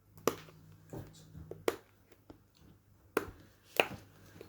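Pop-it fidget toy being pressed, its silicone bubbles popping in a series of sharp clicks at uneven intervals, a few of them louder than the rest.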